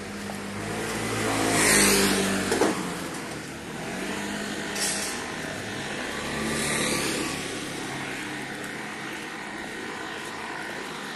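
Motor vehicles passing close by on a street: the loudest swells to a peak about two seconds in, with a short sharp knock just after it, and two fainter vehicles pass a few seconds later.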